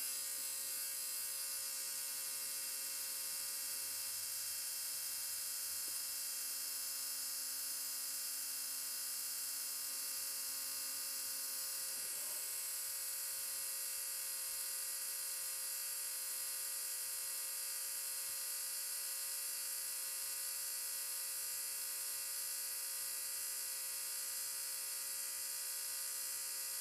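R1 Wurks 21.5-turn brushless RC motor spinning at a steady speed, driven by a motor analyzer for a timing reading with its can timing set to 30 degrees. A steady whine made of many even tones; one low tone in it drops out about halfway through.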